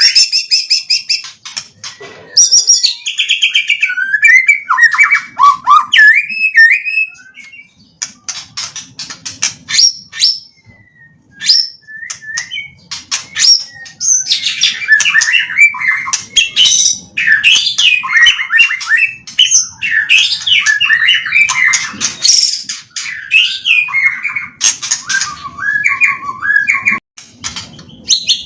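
White-rumped shama (murai batu) singing a loud, varied song of whistled phrases, fast trills and rapid clicking notes, including phrases learned from tutor birds. There is a brief lull about ten seconds in.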